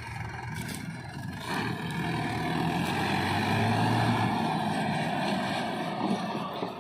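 Swaraj 843 XM tractor's diesel engine running as it pulls a trailer loaded with soil, growing louder as it comes closer.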